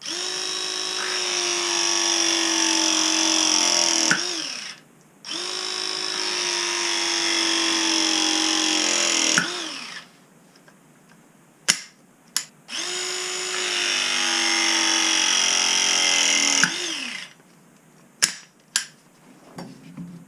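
Battery-powered ProPress crimping tool running through three press cycles of about four seconds each. The motor's pitch sags under load and falls away as each cycle finishes, with a few sharp clicks between cycles.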